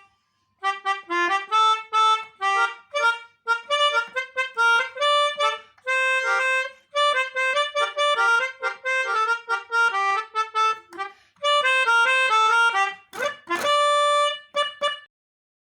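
A fast, bright tune of short notes in a reedy pianika (melodica) tone, played basuri bus-horn style in quick phrases with short pauses between them. A quick rising sweep comes near the end, and the tune stops just after.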